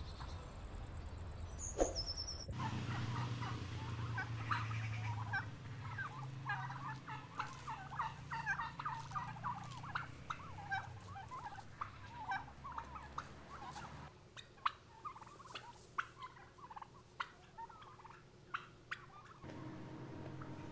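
A flock of domestic turkeys calling: a dense chatter of quick gobbles and clucks that starts a couple of seconds in, then thins to scattered short, sharp calls.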